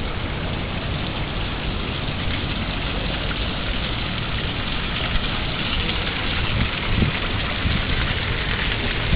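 Water jet from a small solar-powered pump's hose splashing steadily onto wet tiles, a continuous rain-like hiss, with an uneven low rumble underneath.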